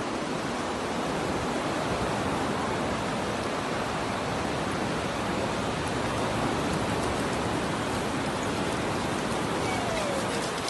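Steady rushing noise of surf and wind at the shore, with a faint falling tone near the end.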